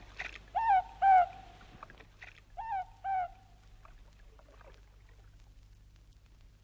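A morepork (ruru), New Zealand's small brown owl, calls its two-note 'more-pork' twice, the calls about two seconds apart, each note dropping in pitch. Faint scattered clicks lie underneath.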